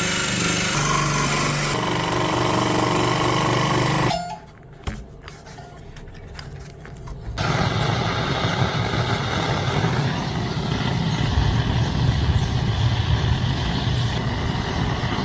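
A power tool running steadily cuts off suddenly about four seconds in. A few quieter clicks follow, then about seven seconds in a louder, low rumbling machine noise starts and runs on.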